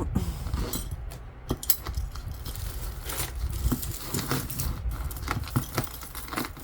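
Metal costume jewelry being handled and rummaged through: chains and small pieces clinking and jingling in a quick, irregular run of small clicks.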